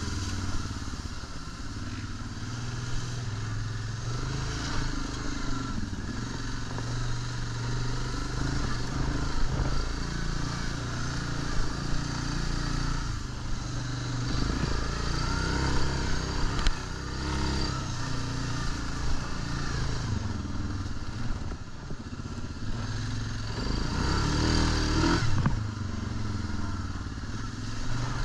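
ATV engine running as the quad is ridden over a rough trail, its revs rising and falling with the throttle, with a few knocks from the machine over bumps. The engine revs up briefly near the end.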